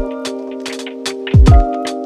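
Chillstep lo-fi electronic music: a sustained synth chord over crisp hi-hat ticks, with deep kick drums that drop in pitch, one at the start and another about a second and a half in.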